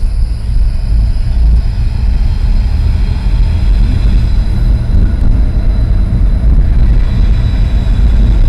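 Tram running along its track, a heavy low rumble of wheels on rails that swells over the first second and then holds steady, with a faint steady high whine above it.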